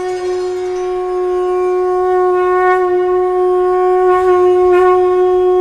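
Conch shell (shankh) blown in one long, steady held note, slightly wavering.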